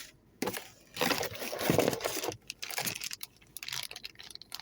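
Plastic packaging bags and box contents being handled and crinkled: a click, then a rustle lasting about a second and a half, with shorter rustles after it.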